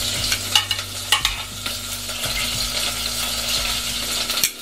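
Metal tongs clicking a few times against the stainless steel inner pot of an Instant Pot as turkey wings are set in, over a steady hiss.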